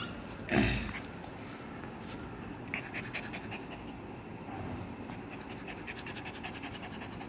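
Miniature pinscher mother panting, having just whelped three puppies. A short handling bump about half a second in.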